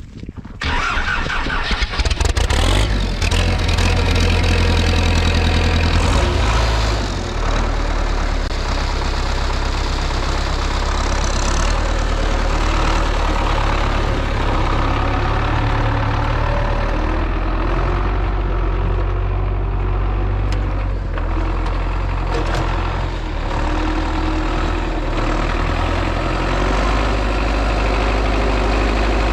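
An engine starting about half a second in, then running steadily at idle, with a change in its note around seven seconds in.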